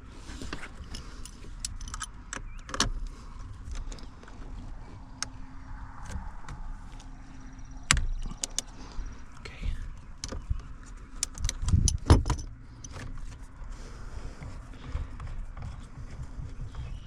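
Scattered clicks, knocks and rattles of a hand tool working a T30 Torx bolt that holds the airbag behind a steering wheel, with heavier thumps about eight seconds in and again around twelve seconds.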